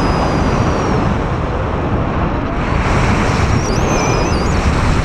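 Airflow buffeting the camera's microphone on a paraglider in flight: a loud, steady rush of wind, with faint thin whistles gliding up and down in pitch.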